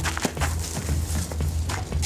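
Background music with a steady bass line, over short clicks and knocks.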